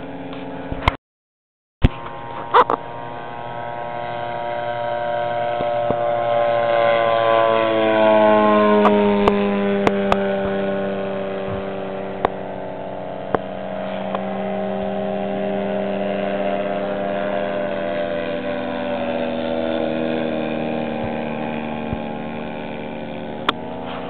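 Engine of a 40%-scale radio-controlled SPAD biplane droning in flight. It grows louder to a peak about eight or nine seconds in, dropping in pitch as it passes, then drones on steadily. The sound cuts out completely for about a second near the start.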